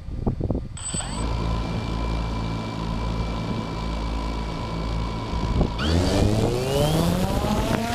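DJI Phantom 2 quadcopter's electric motors starting about a second in and spinning steadily at idle with a whine, then spooling up, rising in pitch and getting louder, near the end as it is throttled up for takeoff. A few light knocks come before the motors start.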